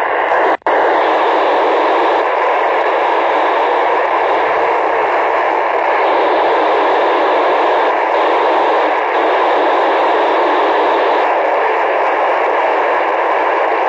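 Steady hiss of FM radio static from an amateur receiver tuned to the PO-101 satellite downlink, with no station talking through it; a brief dropout about half a second in.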